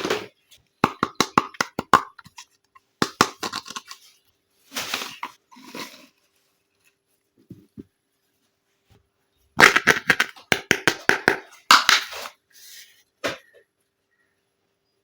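Small plastic toy kitchen pieces and their packaging being handled during an unboxing: clusters of rapid clicks and taps mixed with short bursts of crinkling and tearing. There is a quiet stretch of a few seconds in the middle, then a dense run of clicks and crinkling.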